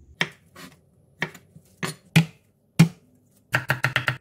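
A chef's knife knocking on a wooden cutting board as garlic cloves are crushed, six separate blows. Near the end it changes to rapid, even chopping, about seven strokes a second, as the garlic is minced.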